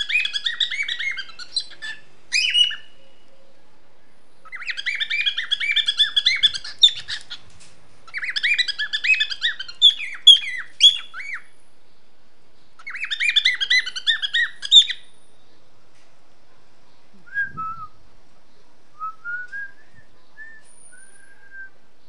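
Cockatiel trying out its first song: four bouts of rapid, chattering warble, each two to three seconds long, then a few short, quieter whistled notes near the end.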